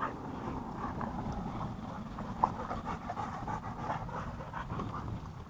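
Dogs panting in rapid, rhythmic breaths, cooling off in the heat after running.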